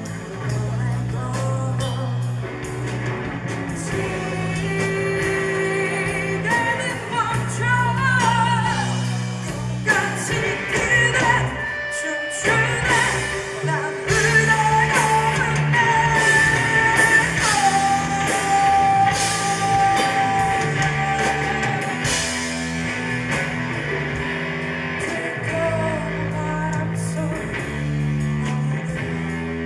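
Live rock band: a woman singing over distorted electric guitar and a drum kit, with some long held notes partway through.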